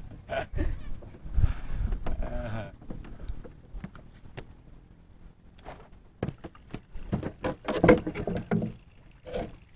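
Handling noises in a small wooden fishing boat: scattered knocks and clicks against the hull, with a quick flurry of knocks about eight seconds in, as a freshly caught fish is dealt with on the boat floor.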